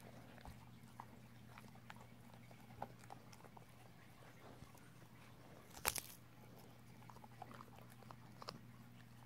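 A dog chewing a rawhide bone: faint, irregular gnawing clicks and crunches, with one louder click about six seconds in.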